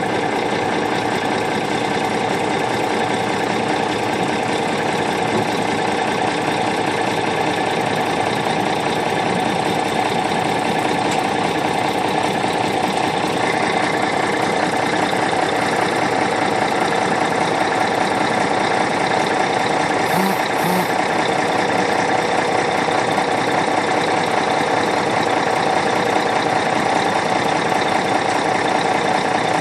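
Boat-hauling truck's engine idling steadily, an even, continuous engine sound that picks up a little more high-end about halfway through.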